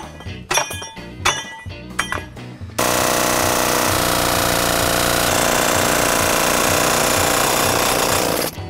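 Repeated metal-on-metal strikes ringing off the chrome knock-off center nut of a wire wheel, then a pneumatic air hammer hammering continuously on the knock-off for about six seconds before cutting off abruptly, working the stuck spinner nut loose.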